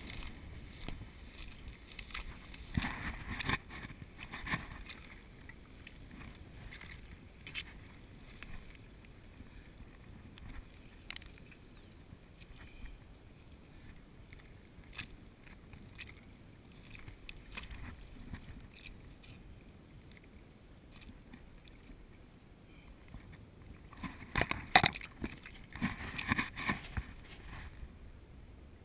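Low wind rumble on the camera microphone with scattered clicks and knocks from handling and steps on mud and oyster shells, louder in two bouts about three seconds in and near the end.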